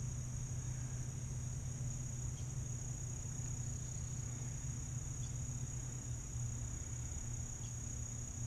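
Steady chorus of crickets or similar insects, a constant high trill, over a low steady hum.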